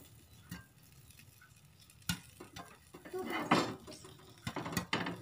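Popcorn kernels popping inside a closed double-sided frying pan on a gas stove: a few scattered sharp pops, with a short denser burst of popping and sizzling about three seconds in. These are the last unpopped kernels bursting.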